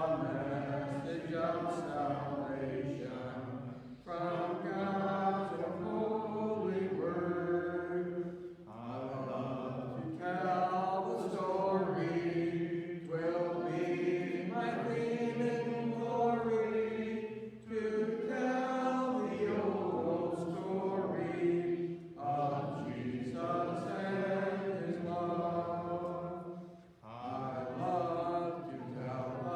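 A congregation singing a hymn together a cappella, voices only, in long sung lines with short breaks between phrases.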